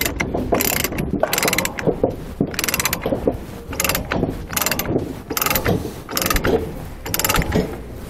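pewag ratcheting chain load binder being cranked by its handle: repeated short runs of rapid pawl clicks, roughly two a second, as the handle is swung back and forth. The binder is taking up the chain slack to tension the chain and secure the load.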